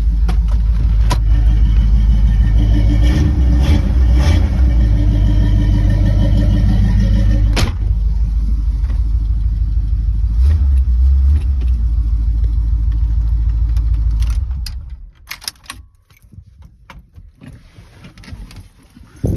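Car engine running steadily with a deep drone and a few sharp clicks, then switched off about three-quarters through, leaving faint clicks and one short knock near the end.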